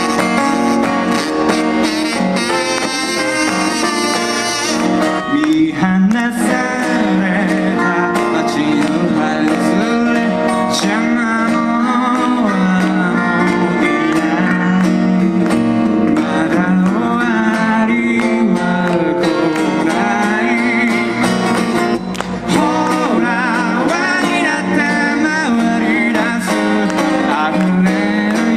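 Two acoustic guitars strummed and picked together in a live song, with a man's singing voice coming in about five seconds in and carrying the melody from then on.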